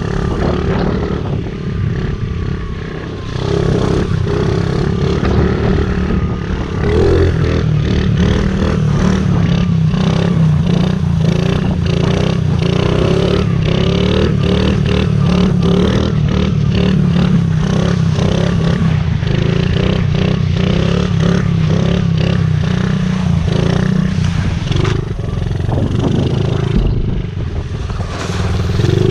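Honda CRF50 pit bike's small single-cylinder four-stroke engine running while ridden, revving up and down. It gets louder about four seconds in.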